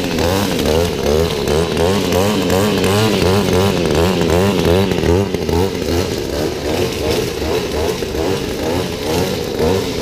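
Two-stroke string trimmer engine running close by, its pitch wavering up and down several times a second.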